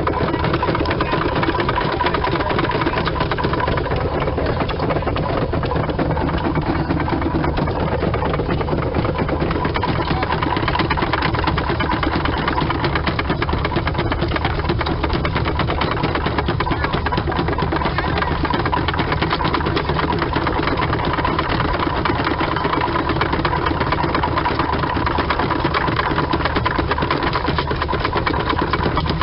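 Antique belt-driven rock crusher running steadily, with a fast, even clatter over a constant hum.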